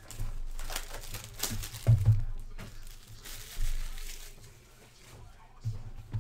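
Plastic shrink wrap being torn and peeled off a card box, crinkling and crackling in irregular spurts. It is loudest about two seconds in, dies down for a second or two, then starts again near the end.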